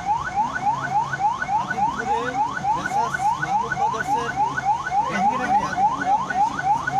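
Ambulance siren on a fast yelp, heard from inside the ambulance's cabin: rapid rising whoops, about four to five a second, repeating without a break over a low engine hum.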